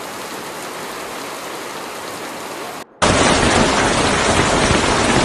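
Steady hiss of a heavy hail and rain downpour. About three seconds in, it cuts to a much louder, dense rush of wind-driven storm rain with a deep rumble beneath it.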